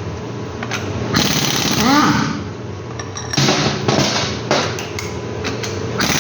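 Impact wrench hammering in two bursts, loosening the bearing cap bolts of a truck differential, over a steady mechanical hum.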